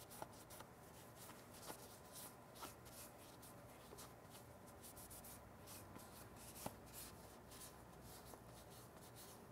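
Faint, quick rubbing strokes of a cloth applicator pad wiping ceramic coating onto a brake caliper, with a light click about two-thirds of the way in.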